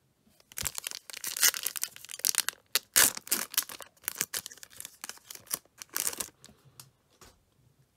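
Foil wrapper of a Panini Prizm Draft Picks football card pack being torn open and crinkled by hand: a run of sharp tearing and crinkling from about half a second in, dying down after about six seconds.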